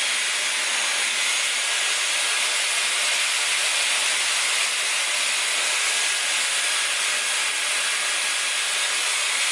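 Dyson Airwrap running on a curling barrel, its fan blowing a steady, even hiss of rushing air while a lock of hair is wound and dried.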